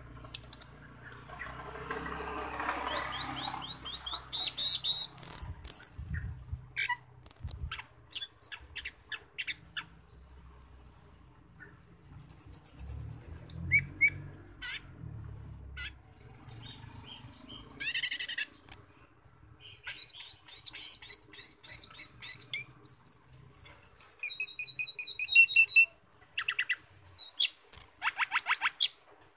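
Asian glossy starling (cucak keling) in full song: fast runs of high, sharp chirps, rapid rattling trills and short whistles, broken by brief pauses.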